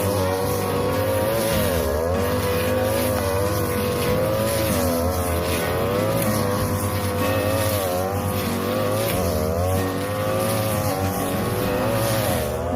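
A 42cc two-stroke brush cutter runs at high revs with one continuous note. Its pitch sags briefly every few seconds and recovers as the blade bogs in thick, fallen cogon grass.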